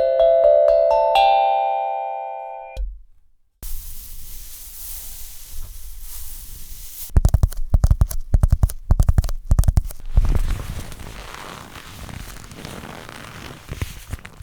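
A few plucked guitar notes ring and fade out over the first three seconds. After a short silence comes a steady hiss, with a rapid run of sharp crackles and knocks about seven to ten seconds in, and scattered ones after.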